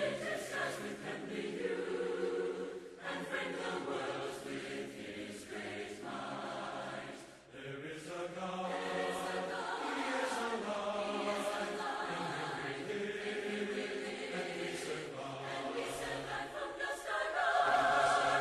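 A choir singing unaccompanied in harmony, in long held phrases with a short break between two of them.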